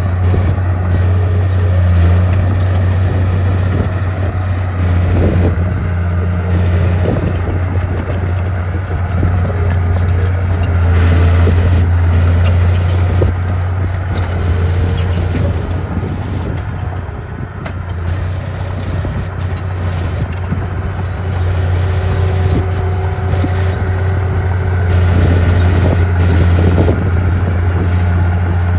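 Heavy earthmoving machine's diesel engine running steadily with a deep, constant hum, with scattered short clanks over it.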